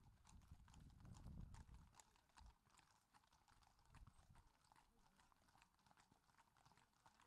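Faint clip-clop of several horses' shod hooves on a tarmac road, many irregular overlapping hoofbeats. A low rumble under it fades out about two seconds in.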